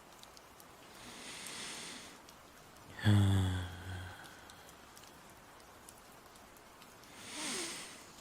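A person's snoring, performed by voice: a hissing breath about a second in, a loud, low snore lasting about a second, and another hissing breath near the end.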